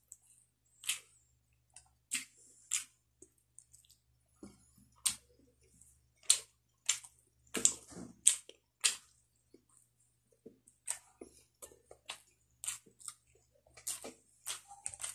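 Close-miked eating sounds: a man chewing grilled tanigue (Spanish mackerel) and rice, with short sharp wet lip smacks and mouth clicks, irregular, about one or two a second.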